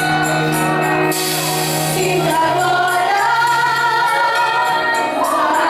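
Gospel worship music: a sung melody held over sustained keyboard chords and bass, with a cymbal or tambourine wash early on.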